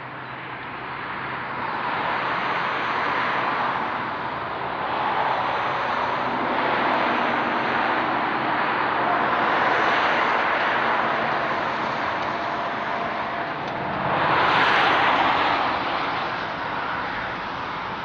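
Road traffic below: cars passing one after another, each a swell of tyre and engine noise that rises and fades, the loudest about fifteen seconds in.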